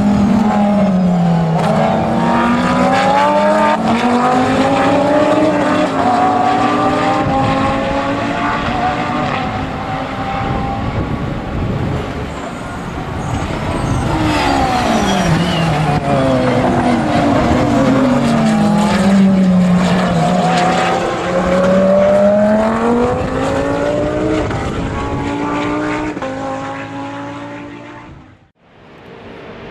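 Several GT race cars' engines passing at the track, overlapping. Twice, the engine pitch drops as the cars brake and shift down, then climbs as they accelerate away through the gears. The sound dips out briefly near the end.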